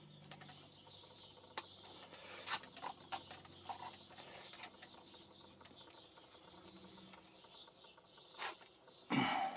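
Small metal bearings clicking and ticking against a steel rod as they are fed into a drilled hole in a wooden branch, in scattered, irregular light taps, with a louder brief sound near the end.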